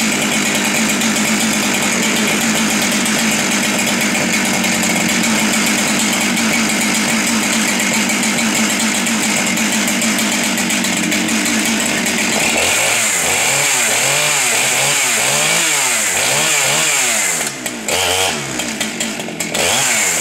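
Husqvarna 394 XP's 94 cc two-stroke chainsaw engine running steadily at high revs, then from about twelve seconds in revving up and down repeatedly, about once a second, as the throttle is blipped.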